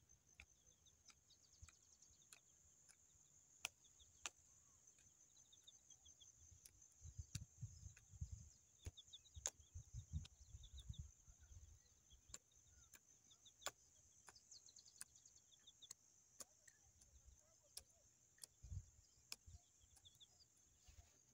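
Near silence with faint rural ambience: a steady high-pitched insect chirring, small scattered chirps, a few faint clicks, and some low rumbles in the middle.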